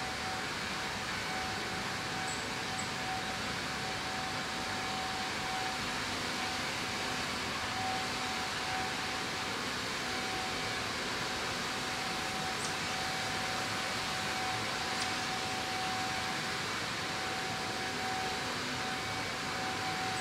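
Steady background noise: an even hiss with a constant mid-pitched tone running under it, and a few faint, short, high chirps.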